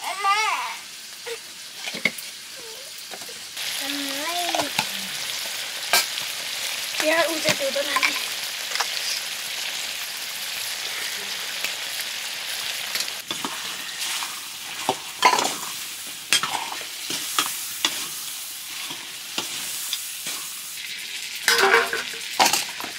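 Pork curry sizzling as it fries in a pan, getting louder about three and a half seconds in. It is being stirred, with a spoon scraping and knocking against the pan now and then.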